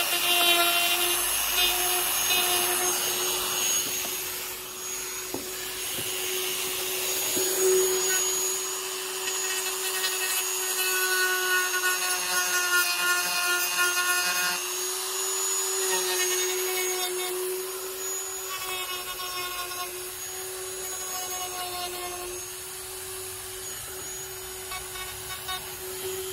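Dremel rotary tool with a sanding drum running at a steady high whine while sanding down moulded plastic tabs on a bumper trim panel. A rasping sanding noise rises and eases as the drum is pressed on and lifted off the plastic.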